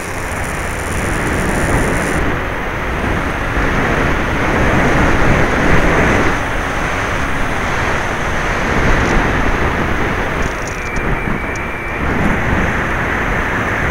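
Wind and airflow buffeting the onboard camera's microphone on an FPV-Raptor 1600 model plane in flight in very gusty wind: a loud, rough rushing that rises and falls.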